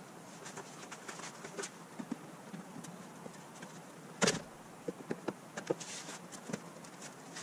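Scattered light clicks and taps of hands working at a car's underbody panel from below, with one louder knock about four seconds in.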